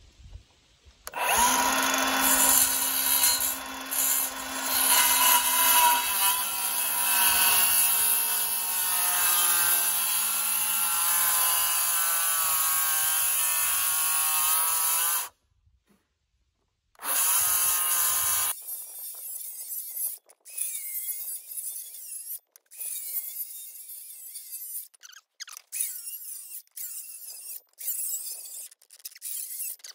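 Milwaukee M18 cordless circular saw spinning up about a second in and cutting into a hardwood beam, a steady loud run of about fourteen seconds, making shallow housing cuts across the timber. After a break it cuts again briefly and stops, and lighter scrapes and clicks of the saw and wood follow.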